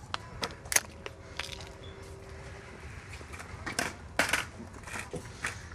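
Scattered sharp clicks and knocks at irregular intervals, the loudest about a second in and about four seconds in, over a low background hum.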